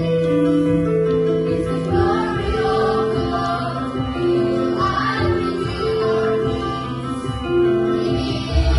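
Children's choir singing together to instrumental accompaniment, with long held notes.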